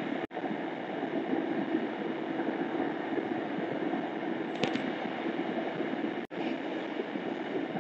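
Steady low rumbling cabin noise inside a stationary vehicle, with a faint even hum running through it. The sound cuts out for an instant twice, once just after the start and once about six seconds in.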